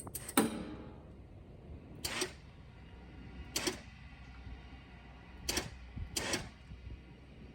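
Five sharp metallic clanks, irregularly spaced a second or two apart, the first ringing briefly, as a crowbar is worked against the truck's fuel tank and its fittings, over a low steady hum.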